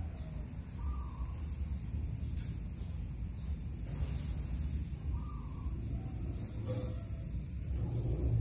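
Crickets trilling steadily at a high pitch over a constant low rumble.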